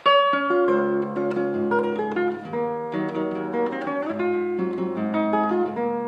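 Background music on acoustic guitar, a run of plucked notes and chords that begins suddenly.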